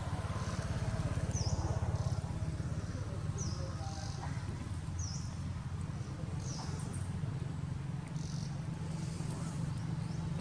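Outdoor ambience: a steady low rumble with a short, high chirp repeating about every one and a half to two seconds.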